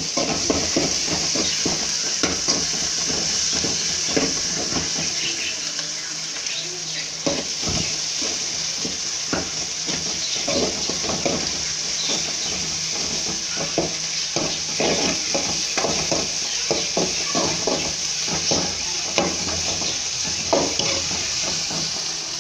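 Chopped onions, tomatoes and green chillies sizzling in oil in a metal kadai as the ginger-garlic paste is sautéed in, with a steady hiss throughout. A ladle stirs and scrapes against the pan in many quick, irregular strokes.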